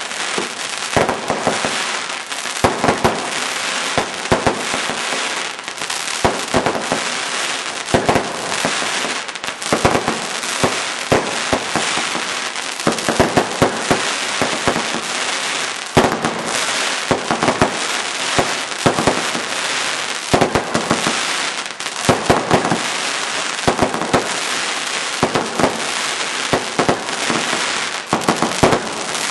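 Aerial fireworks bursting overhead: a dense, unbroken crackle of many sharp pops and bangs, with one especially sharp bang about halfway through.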